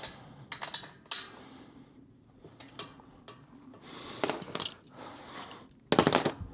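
Metal hardware clinking and knocking in short, irregular clatters, with a denser rattle of about half a second near the end as the loudest part.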